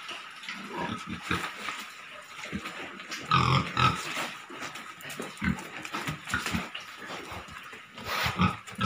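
Domestic pigs grunting in short, irregular grunts. The grunts are loudest a little over three seconds in and again near the end.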